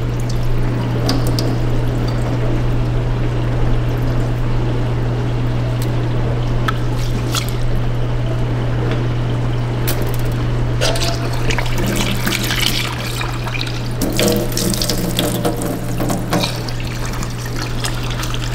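Rice being washed in a glass measuring cup at a kitchen sink: cloudy rinse water is poured off and swished, with small splashes and clinks. A tap runs louder into the sink and the cup from about eleven seconds in. A steady low hum sits underneath.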